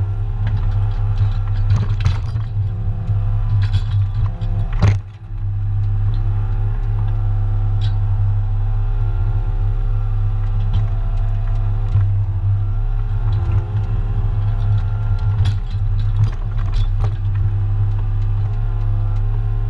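New Holland mini excavator running steadily under load, its diesel engine hum and a steady hydraulic whine continuous while the bucket digs soil and tips it into a trailer. Scattered short knocks and scrapes come from the bucket working the ground.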